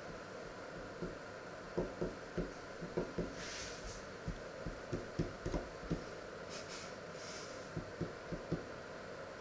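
Soft, irregular low thumps, a dozen or so clustered in the middle, with two brief rustles, over a steady low hum.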